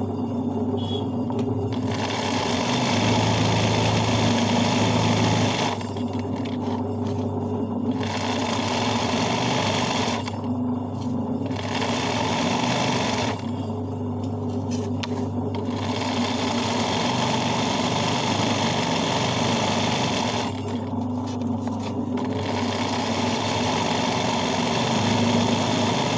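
Sewing machine doing hand-guided embroidery stitching. The needle runs in stretches of two to five seconds, five times, with short pauses between, over a steady low hum.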